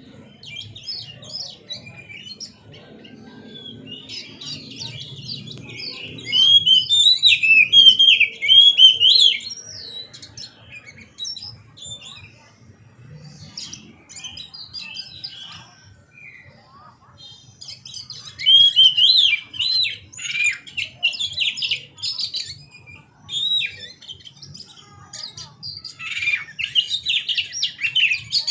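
Oriental magpie-robin singing a fast, varied song of quick whistled and rough notes, in loud spells with a quieter stretch in the middle.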